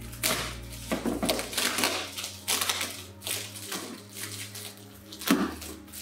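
Clear plastic wrapping crinkling and rustling in repeated irregular bursts as it is pulled and torn off a parcel by hand, the loudest crackle near the end.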